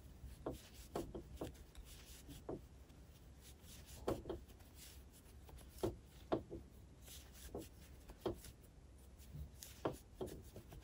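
Faint, irregular rustles and soft scrapes of a large crochet hook and chunky yarn as a V puff stitch is worked: repeated yarn-overs drawn through loops on the hook.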